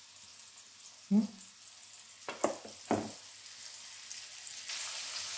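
Olive oil sizzling steadily in a frying pan with batter-coated green beans, the sizzle growing louder near the end. A short low knock comes about a second in, and three sharp clicks of metal tongs follow around the middle.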